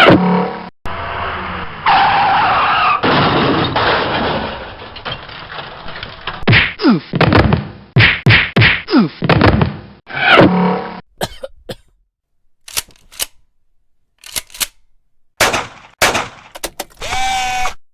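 A run of stock fight sound effects: punches, thuds and crashes. There is a long noisy crash about two seconds in that slowly dies away, and a quick string of hits in the middle.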